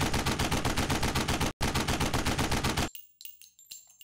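Automatic gunfire sound effect: a long rapid burst of roughly ten shots a second, broken by a brief gap about one and a half seconds in, stopping near three seconds in. Scattered faint metallic clinks with a thin high ring follow.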